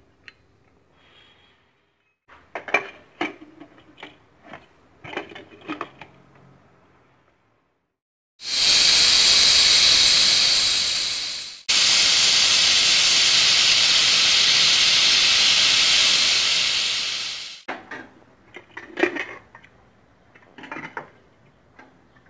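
Pressure cooker whistling: steam hisses out loudly past the weight valve in two long blasts, about three and six seconds long, the second starting right after the first stops. Light metal clinks of pot and lid come before and after.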